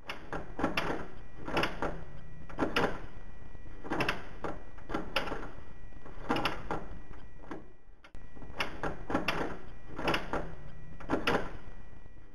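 Round doorknob being turned and rattled over and over, its latch clicking, in quick clusters of two or three clacks about once a second, with a brief break about eight seconds in.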